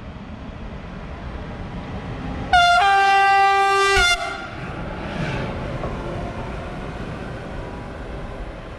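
A red DB locomotive running through the station sounds one steady horn blast of about a second and a half, a lower note joining just after it starts. The blast rides over the rumble of the locomotive passing close by, which goes on after the horn stops.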